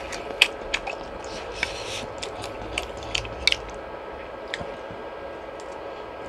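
Close-up eating of fish cake (eomuk) soup: a quick run of sharp, wet clicks and smacks of chewing for about three and a half seconds, then only a couple more, over a steady background hum.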